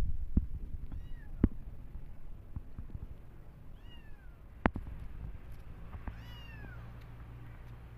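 A kitten meowing three times, short high calls that each fall in pitch, the last about six seconds in the longest. A few sharp taps are heard between the meows.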